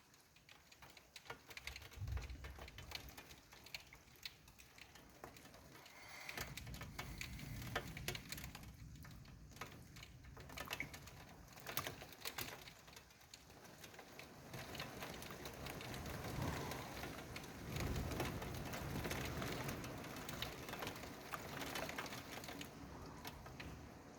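Thunderstorm rain pattering as many quick drop clicks on hard surfaces, with deep swells of noise building about two seconds in, again from about six seconds, and most strongly from about fourteen seconds on.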